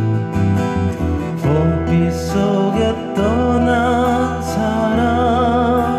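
Man singing a Korean ballad over two acoustic guitars and a backing beat with a steady bass line. The voice comes in about a second and a half in and holds long notes with vibrato.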